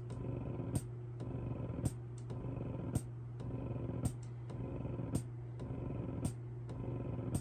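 Spectra Synergy Gold dual-motor electric breast pump running: a steady motor hum with a sharp click about once a second, keeping an even pumping rhythm.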